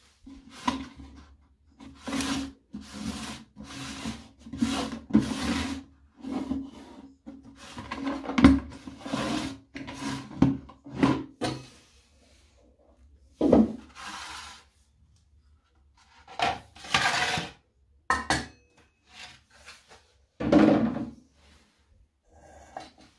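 Hard plastic carrying case of a Coleman 533 stove being handled and its cover pulled off: a run of short rubbing and scraping strokes of plastic. After that come a few separate scrapes and knocks with pauses between, as the stove is handled in the case base.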